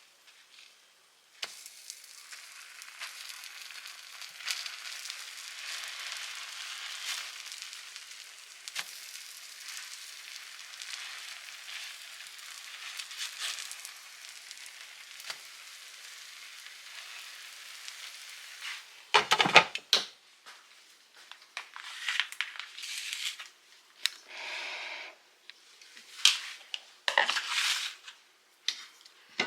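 Food sizzling steadily in a hot frying pan. Near the end it gives way to several sharp knocks and scrapes, like a utensil working against the pan.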